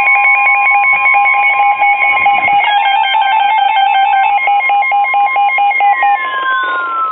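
Emergency alert broadcast tones: a steady high electronic tone held throughout, with rapidly stepping beeping tones above and below it that change pattern about three seconds in, and a tone gliding downward near the end.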